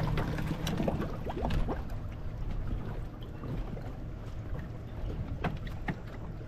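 Uneven low rumble of wind on the microphone aboard a fishing boat, with scattered short knocks and clicks.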